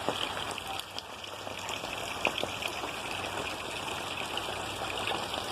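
Steady light rain, with many scattered drops ticking close to the microphone.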